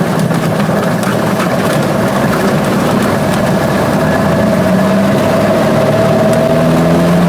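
1958 Cessna 182's six-cylinder Continental O-470 engine and propeller running steadily at low power, heard inside the cockpit, before full takeoff power. The note gets slowly a little louder and shifts slightly in pitch near the end.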